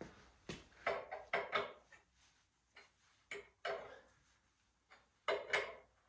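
A scattered series of short knocks and clicks, about a dozen over six seconds, with quiet gaps between them and no engine running.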